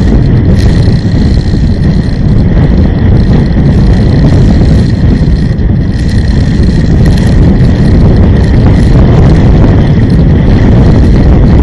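Loud, steady low rumble of a vehicle driving along, heard from inside it: engine and road noise.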